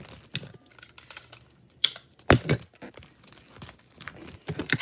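Plastic bag crinkling and crackling as it is handled, with a few sharper crackles about two seconds in.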